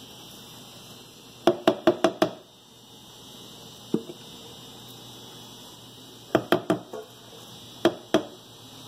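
Silicone spatula knocked against metal bakeware to shake off chocolate cake batter: a quick run of about five sharp knocks, a single knock, another run of four, then two more, each ringing briefly.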